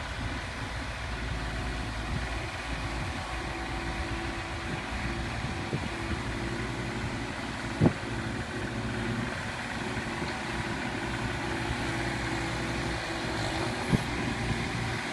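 A small construction machine's engine running steadily, with two sharp knocks partway through.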